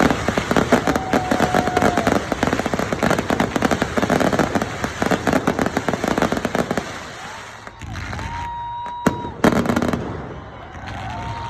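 Fireworks display: a dense run of rapid crackling bursts for about seven seconds, then fewer, scattered bangs with a few high whistles and one sharp loud burst near the end.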